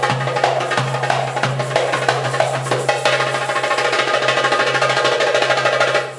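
Darbuka (Middle Eastern goblet drum) playing a fast rhythm over Arabic music with held melodic notes, the strokes growing quicker and denser about halfway through.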